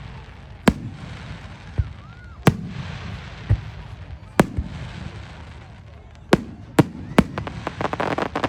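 Fireworks bursting overhead: single sharp bangs every second or two, six in all, then a rapid crackle of many small pops near the end.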